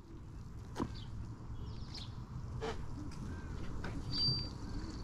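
Outdoor ambience: a steady low rumble with faint bird chirps and a few light clicks.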